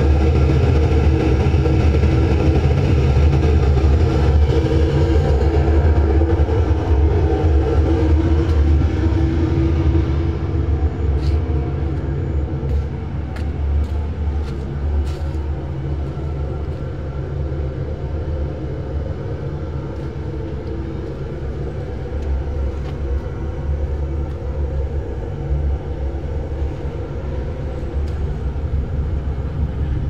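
Forced-draft gas burner firing a crucible furnace, running with a steady low rumble that grows somewhat quieter about a third of the way in. A few faint clicks come a little before halfway.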